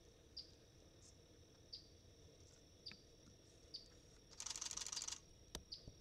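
Faint outdoor ambience: a steady high-pitched insect drone with short falling chirps about once a second. About four and a half seconds in comes a harsh buzzy rasp lasting about a second, the loudest sound, followed by a single sharp click.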